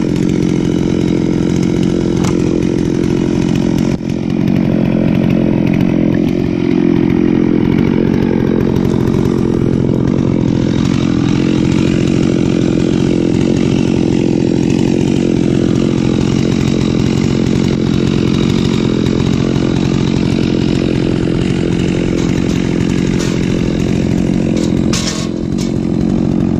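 Large two-stroke chainsaw running at high, steady revs under load, cutting through dense red gum eucalyptus. The engine note dips briefly twice.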